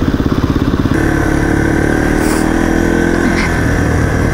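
Dirt bike engines running while riding a trail. For about the first second a single-cylinder engine runs with a fast, even pulsing beat; then the sound switches to another dirt bike's engine, smoother, with a steady high whine over it.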